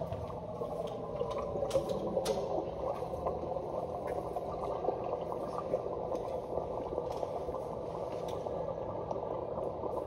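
Steady murmur of many indistinct voices in a large room, with a few sharp handling clicks.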